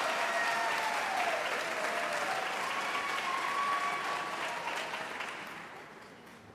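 Audience applause with a few cheering voices, dying away over the last two seconds.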